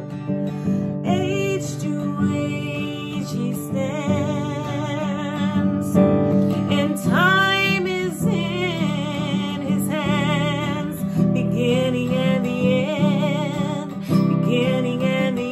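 A woman singing a slow worship song with a wide vibrato, accompanying herself on a strummed acoustic guitar.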